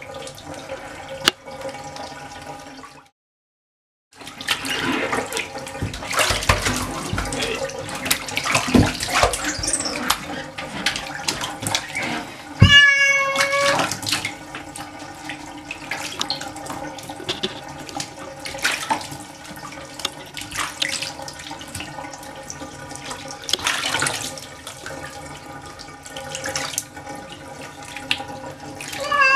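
Bathtub water running and splashing as a wet kitten is washed. The kitten meows loudly once about halfway through, and again briefly near the end.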